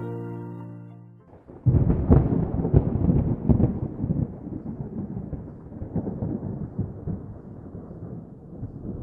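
A held musical chord fades out, then about 1.7 seconds in a sudden loud thunderclap breaks and rolls on as crackling, rumbling thunder that slowly dies away.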